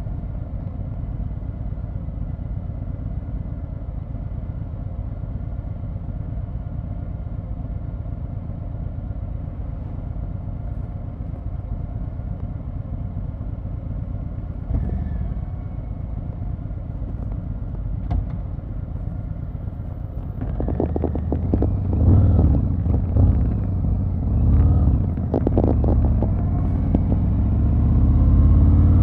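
Harley-Davidson Fat Boy 114's Milwaukee-Eight 114 V-twin with Vance & Hines Eliminator 300 PCX exhaust, heard under way: a steady low rumble at an easy cruise. About two-thirds of the way through it turns louder and rougher as the bike pulls harder, and the note rises again near the end.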